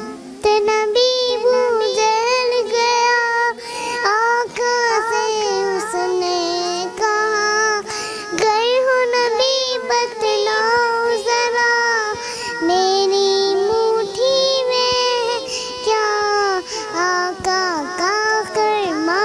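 A young girl singing an Islamic ghazal (gojol), with long held notes ornamented by quick wavering turns in pitch.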